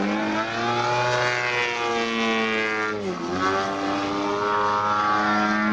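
Hangar 9 Extra 300 model aircraft's DA 120cc twin-cylinder two-stroke petrol engine and propeller at high power. Its pitch rises over the first two seconds, dips sharply about three seconds in, then runs steady.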